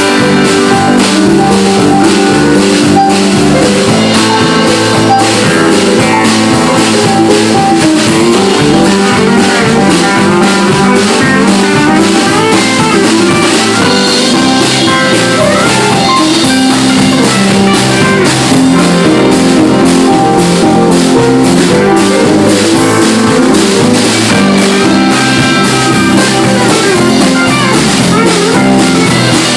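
Live rock band playing an instrumental break: electric guitar leading over bass and a drum kit, with no singing.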